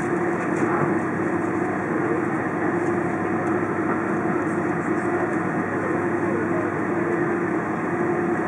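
Cabin noise of an Airbus A330 taxiing, heard from inside near the wing: the jet engines running at low taxi power as a steady rush with one steady tone running through it.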